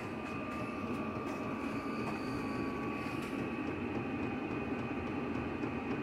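Chinese diesel air heater running: a steady whir of its blower fan and burner.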